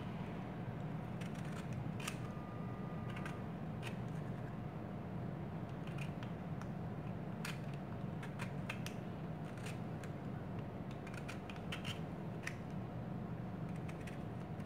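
Handheld vegetable peeler scraping the thin outer rind off an orange in short, irregular strokes, over a steady low hum.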